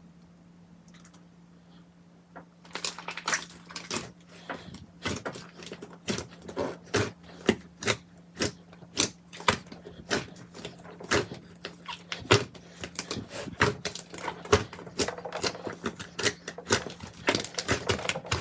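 Slime being squeezed and poked by hand, crackling and popping in sharp, irregular clicks, several a second, that start about two and a half seconds in after a faint steady hum.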